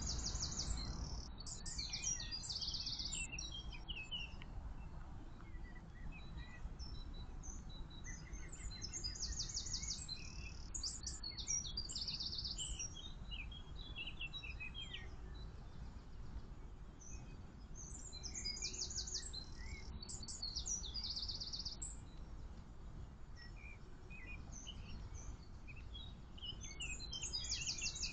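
Small songbirds singing: several separate phrases of high, rapid trills, repeated every several seconds, over a steady low rumble of background noise.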